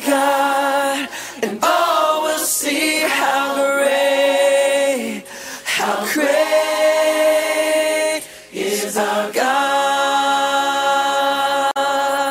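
Music: a group of voices singing unaccompanied in long held chords, moving to a new chord every second or two.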